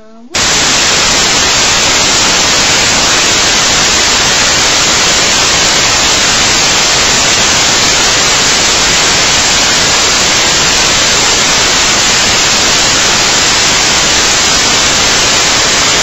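Loud, steady static hiss that cuts in suddenly just after the start and stays unchanged throughout. It drowns out everything else and behaves like a noise fault in the recording's audio rather than a sound in the room.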